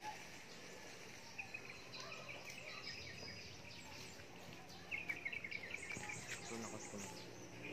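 Rural outdoor ambience with faint birds and insects chirping. Runs of short, quickly repeated chirps come once about a second and a half in and again about five seconds in.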